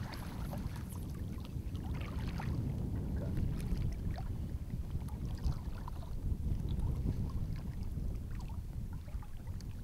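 Wind rumbling on the microphone over shallow water, with scattered faint small splashes and trickles.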